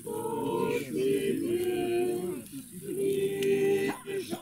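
A group of voices singing together, holding long notes that slide from one pitch to the next, with a short break between phrases about halfway through.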